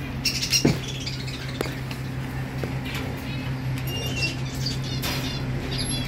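Blue Indian ringneck parakeet giving short, high chirps and squawks in quick runs, with a few sharp knocks, the loudest about half a second in, over a steady low hum.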